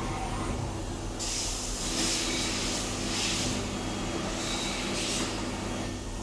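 CNC machine running with a steady low hum, joined about a second in by a loud spraying hiss that swells and eases several times.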